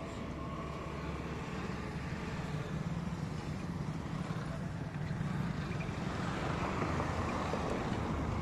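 A motor engine running steadily, getting louder in the second half.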